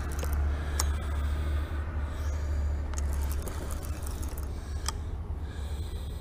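Spinning reel being cranked steadily to bring in a hooked catfish, with a scratchy, scraping sound and a few sharp clicks over a steady low rumble.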